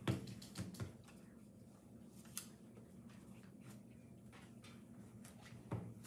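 A few light knocks and clicks, about six in all with the loudest near the start, from a watercolour brush and hand working over paper and a paint palette, over a faint low steady hum.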